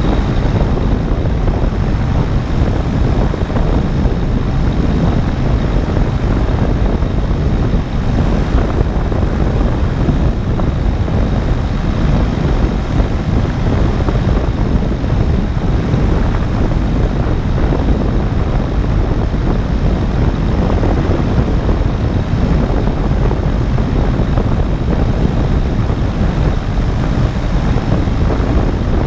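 Paramotor in flight: a steady drone from its engine and propeller, mixed with wind rushing over the microphone.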